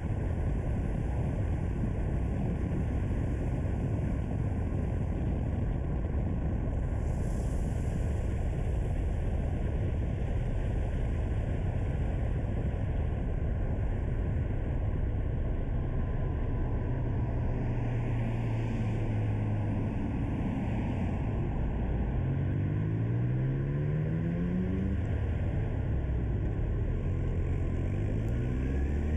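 Car engine and tyre noise while driving, a steady low rumble. About two thirds of the way through, the engine note rises several times in quick succession as the car accelerates, and it rises again near the end.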